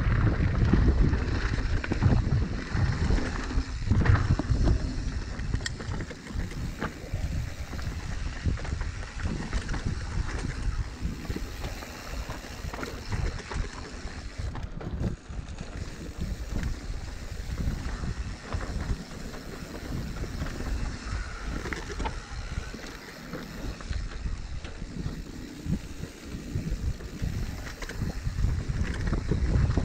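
Mountain bike ridden fast down a dirt trail: tyres rumbling and the bike rattling over roots and bumps, with wind buffeting the microphone. The noise surges and knocks unevenly, louder in the first few seconds and again near the end.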